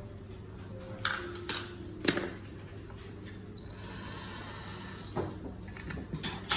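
A few sharp clicks and knocks from core-drill parts being handled during disassembly, the loudest about two seconds in, over a steady low hum.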